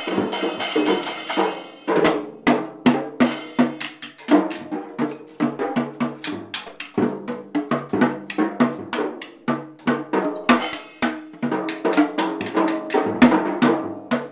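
Drum kit played by children in quick, uneven strokes, mixing bass drum and snare hits with pitched drum tones. A ringing wash, like a cymbal, carries through about the first two seconds before the separate hits take over.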